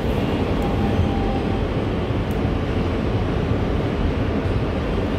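Interior of an R160B Siemens subway car in motion: a steady rumble of wheels on rail and car-body noise.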